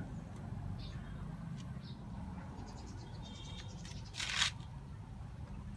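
Faint handling noises over a low steady hum, with one short scrape about four seconds in.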